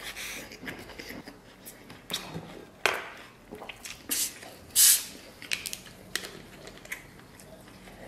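Scattered clicks and smacks of eating, then a plastic bottle of cola twisted open with a short, loud hiss of escaping carbonation about five seconds in.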